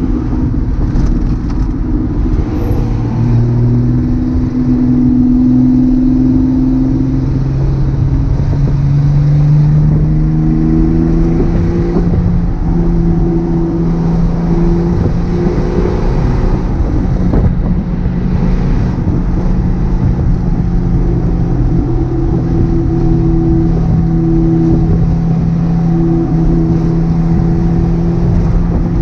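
1978 Datsun 280Z's straight-six engine and exhaust on the move: the note climbs slowly through the first ten seconds or so as the car gathers speed, then holds steady at a cruise.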